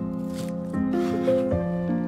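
Gentle background music of held, pitched notes that change every half second or so, with a couple of soft knife scrapes on a cutting board.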